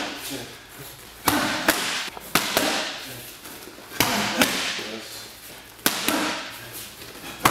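Boxing gloves smacking into focus mitts during pad work, with punches landing in quick one-two pairs about every second and a half.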